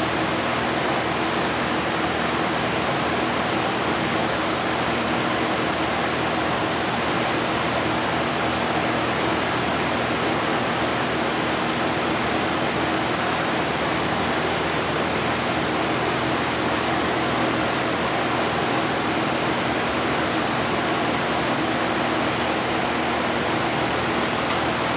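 Steady, unbroken rush of air with a low hum underneath, from air-driven spray-painting equipment running in the paint shop.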